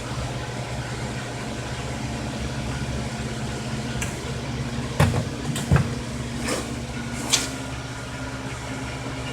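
Steady hum of a forge blower's electric motor fanning the coal fire, with a few sharp metallic knocks and clicks in the middle.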